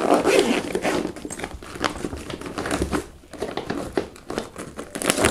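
Fabric backpack being closed: rustling and crinkling of its nylon and stiff plastic-lined lid as it is handled, with the zipper pulled around the lid's edge.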